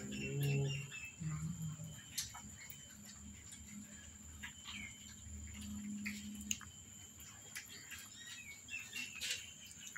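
Cats and kittens eating shredded meat off a tile floor: scattered soft clicks of chewing, with short high chirps and a few low hums.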